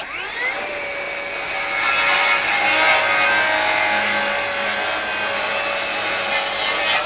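FLEX FX2141R 24-volt brushless rear-handle circular saw spinning up and making a 45-degree bevel cut through pressure-treated lumber: a steady motor whine under the hiss of the blade chewing through wood, getting louder about two seconds in. Right at the end the trigger is released and the blade starts to wind down.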